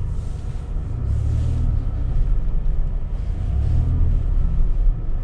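Low rumble of a Chevrolet Colorado pickup's 3.6-litre V6 petrol engine and drivetrain as it drives onto an off-road course in four-wheel-high, swelling twice.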